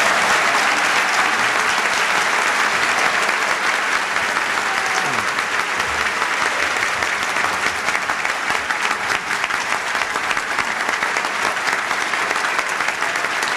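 Loud, sustained applause from a large audience clapping.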